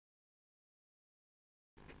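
Near silence: the soundtrack is blank until, near the end, a faint steady background hiss with a low rumble begins.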